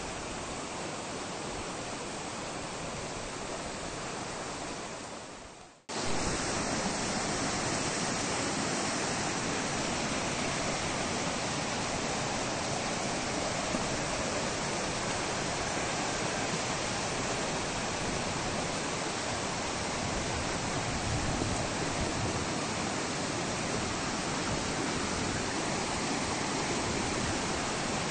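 A flooded mountain river rushing in a muddy torrent down a village street, a steady sound of fast-flowing water. It fades out briefly about six seconds in and comes back suddenly, a little louder.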